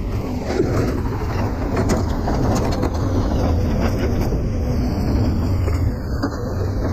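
A motor vehicle driving: a steady low engine and road rumble with a few faint clicks.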